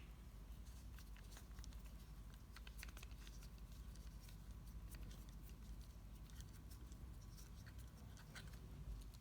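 Faint, scattered small scratchy clicks of a screwdriver turning the small screw in the bottom of a padlock body, over low steady room hum.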